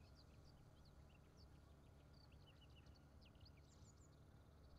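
Near silence: faint birds chirping in short, rapid calls over a low, steady background rumble.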